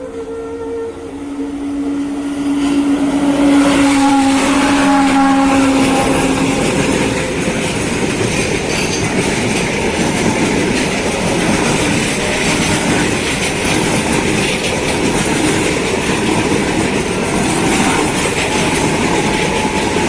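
A train passing: its horn sounds steadily for the first several seconds, then the rolling wagons keep up a loud, steady rumble of wheels on the rails.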